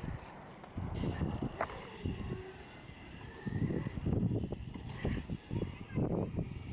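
BMX bike tyres rolling over skatepark concrete in uneven rumbles, with a sharp knock about one and a half seconds in.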